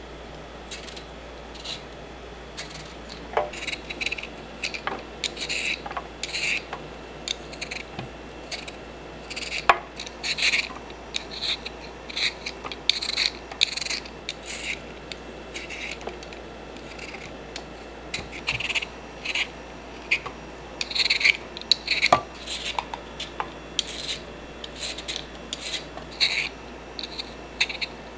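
Y-shaped vegetable peeler scraping the skin off a raw potato in short, quick strokes, repeated irregularly, with a few light knocks in between.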